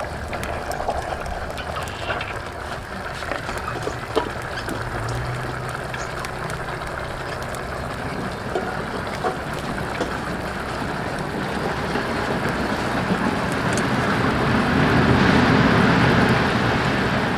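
Beer poured in a thin stream into a stainless steel pot holding a whole chicken. The pour builds to the loudest sound near the end. Before it there is steady background noise, with light clicks and taps as garlic cloves and lemongrass are set in the pot.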